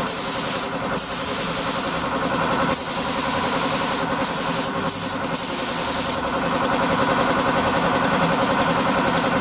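Electric piston air compressor running steadily with a fast, even pulsing, while a compressed-air paint spray gun hisses in repeated bursts as its trigger is pulled and released; the spraying stops about six seconds in and the compressor runs on alone.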